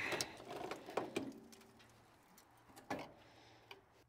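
Quiet scattered knocks and clicks, with a short high squeak at the start, as the hood of a 1968 Ford F350 pickup is raised and hands work in the engine bay.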